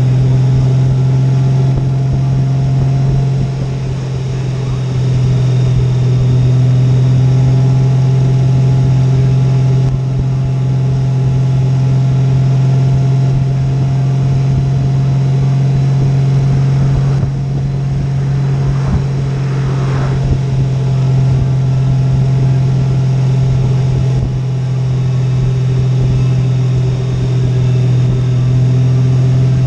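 Honda Gold Wing's flat-six engine running steadily at a cruise, mixed with wind and road noise, heard from the rider's seat.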